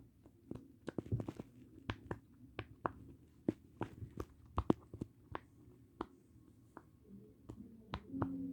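Silicone pop-it fidget toy being pressed bubble by bubble on its noisy side, giving a run of small, irregular popping clicks, a couple to a few a second. A low steady tone comes in near the end.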